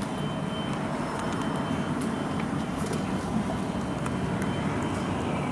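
Steady low rumble of background noise, even throughout.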